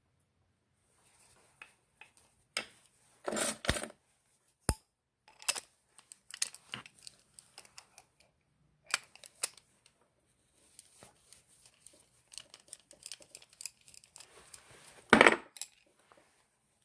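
Scattered small metal clicks and clinks of tools and parts being handled while an opened Abus 90/50 padlock is taken apart, with a louder clatter about three seconds in and another near the end.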